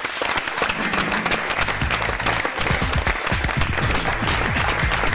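Studio audience applauding, with music playing underneath.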